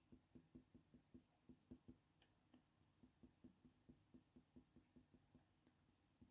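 Faint, quick strokes of a Faber-Castell Polychromos coloured pencil on hot-press watercolour paper, about four to five short strokes a second, with a brief break partway through and thinning out near the end.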